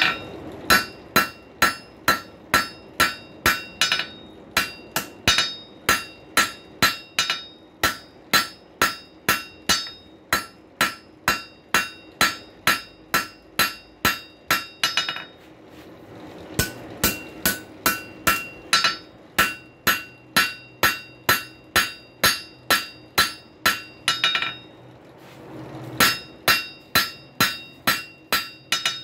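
Hand hammer striking hot rail-spike steel on an anvil in steady runs of about three blows a second, each blow leaving a bright metallic ring, with two short pauses. The steel is being drawn out at one isolated heat to pull more length into the handle.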